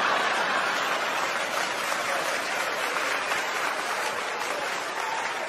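Live audience applauding after a joke, a steady wash of clapping that eases slightly toward the end.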